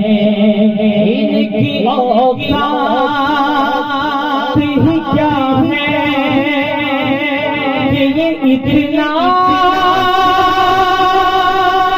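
A man singing a naat, an Urdu devotional poem, into a microphone. He wavers on his notes and holds long, drawn-out lines, with a long sustained note in the second half.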